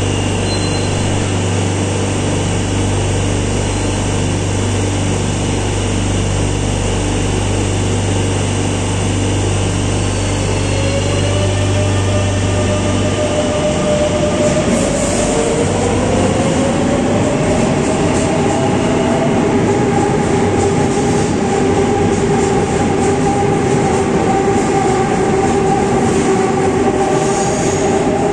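Madrid Metro 7000-series electric train standing at the platform with a steady low equipment hum. About ten to fifteen seconds in it pulls away: the traction motors whine, rising in pitch, then a sustained whine and rumble carry on as it runs into the tunnel.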